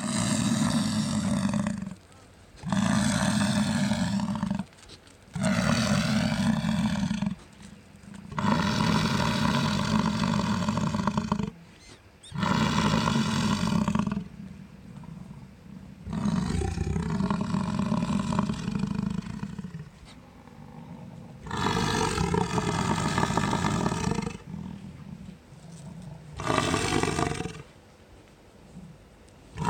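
American bison bull bellowing over and over: a long series of deep roaring calls, each one to three seconds long, with short pauses between. This is the bellow bulls give during the summer rut.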